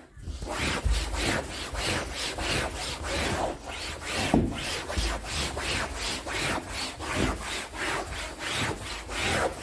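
A damp rag held over a pan lid scrubbed back and forth on a fabric sofa, a steady run of quick, evenly spaced rubbing strokes.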